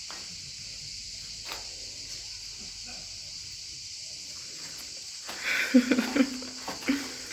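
Steady high-pitched insect chorus, with a brief voice about five and a half seconds in.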